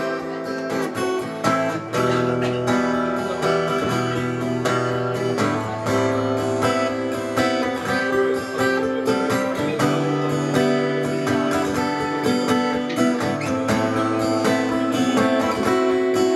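Acoustic guitar strummed in a steady rhythm, the chords changing every second or two, with no singing.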